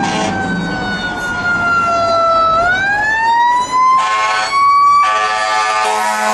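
A siren sounding, its pitch winding slowly down and then sweeping back up and holding high, with two horn blasts, a short one about four seconds in and a longer one near the end.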